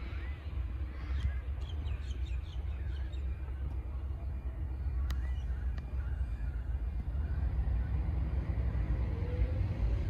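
Steady low wind rumble on the microphone, with birds chirping during the first few seconds. A rising tone begins near the end.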